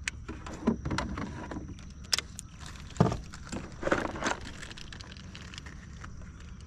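Fishing tackle being handled in a canoe: a cluster of clicks, light knocks and metallic rattles over the first four seconds or so, the loudest knock about three seconds in, then only a faint steady background.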